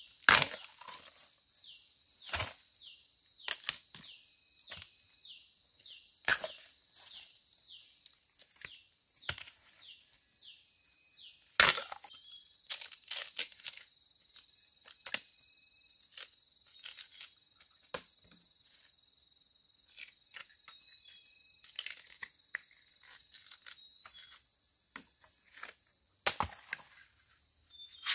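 Irregular sharp cracks and snaps of plant stems breaking, over a steady high insect drone. A short falling chirp repeats about twice a second for roughly the first ten seconds.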